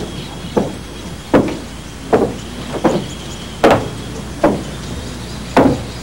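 A series of short, dull thuds, about one every second, in an uneven rhythm.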